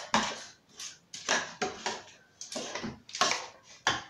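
A spoon scraping and knocking against a stainless-steel pot as it stirs thick, sticky maja blanca, in an irregular run of strokes about every half second.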